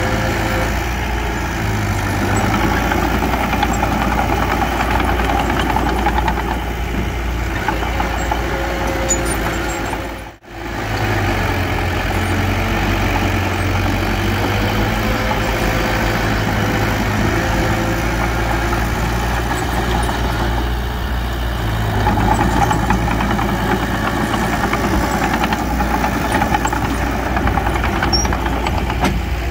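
Diesel engine of earthmoving machinery running steadily at a low, even pace, with a brief sudden gap about ten seconds in.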